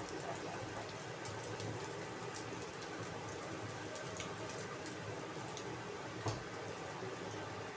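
Egg and dried radish frying in oil in a non-stick wok: a steady sizzle with scattered crackles, and the spatula moving the pieces around. One louder knock about six seconds in.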